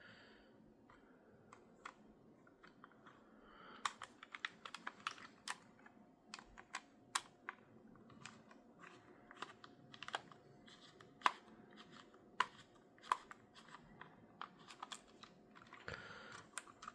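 Small screwdriver working the tiny screws in a Nintendo Switch Pro Controller's plastic shell: light, irregular clicks and ticks of metal on screw heads and plastic, sparse at first and coming thick and fast from about four seconds in.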